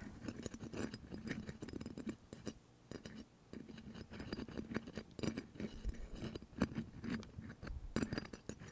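Close-up irregular crisp clicks and light scratching right at a microphone, from fingers working a small object against its ear.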